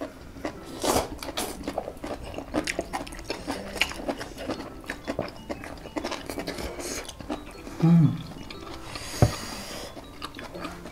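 Close-miked slurping and chewing of Shin Ramyun instant noodles: a run of quick wet slurps, smacks and chews. About eight seconds in comes a brief low hum from one of the eaters, then a longer hissing slurp.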